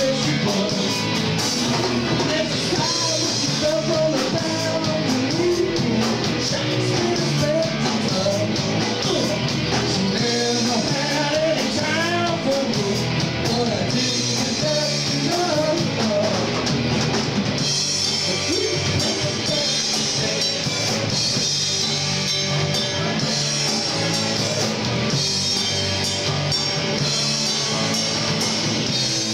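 Rock band playing live on electric guitars, bass guitar and drum kit. A melodic lead line rises and falls in pitch through the first half, and the cymbals come up brighter from about halfway.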